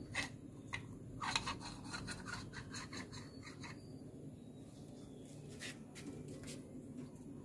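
Small clicks and scrapes of a motorcycle electric starter motor's metal parts being handled and set down, bunched in the first half.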